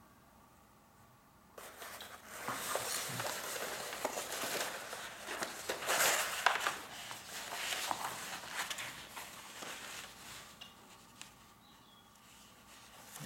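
Paper being handled: a painted sheet and the large white sheet under it rustle and crackle as they are lifted, turned over and rolled. It starts about a second and a half in, is loudest midway, and eases off near the end.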